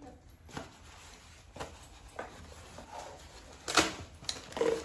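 Scattered light clicks and knocks of plastic and metal tricycle parts being handled during assembly, the loudest a little under four seconds in. A brief pitched vocal sound, likely the toddler's, comes near the end.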